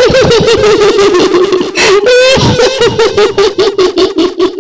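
A woman's high-pitched cackling laugh in the style of the kuntilanak ghost of Indonesian folklore: rapid, evenly repeated laughing pulses, about eight a second, with a brief quavering higher cry about two seconds in.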